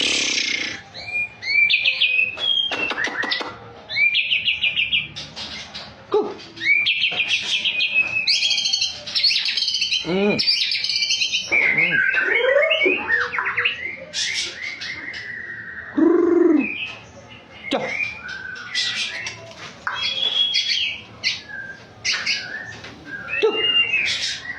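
White-rumped shama singing a long, varied song: quick runs of trilled notes, clear whistles and swooping phrases, one after another with only brief pauses.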